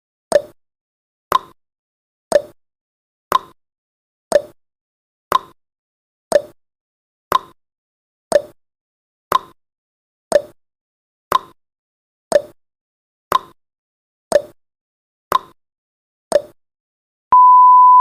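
Countdown timer's tick-tock sound effect, one sharp tick a second, alternating between a lower and a higher click. Near the end the ticking stops and a steady beep starts as the timer runs out.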